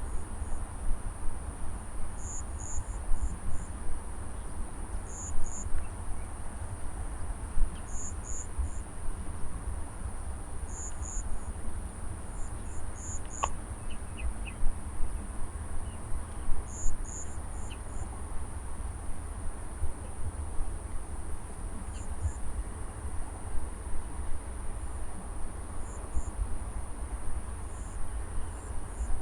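Insects of a rice paddy field: a steady high-pitched drone, with short clusters of two to four chirps every few seconds, over a constant low rumble.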